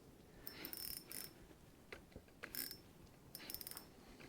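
Fishing reel being cranked in short spurts, a faint rapid ratcheting of its gears heard three times.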